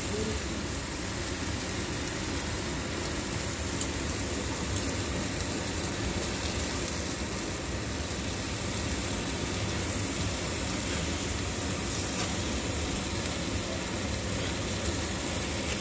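Mahi mahi fillets sizzling on a hot griddle: a steady hiss, with a light click about four seconds in.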